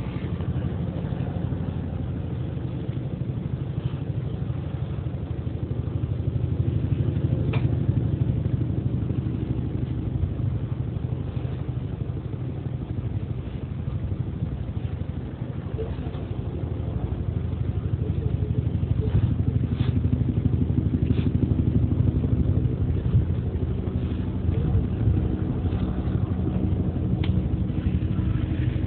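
Steady low mechanical hum, like a running engine, with a few faint clicks scattered through it.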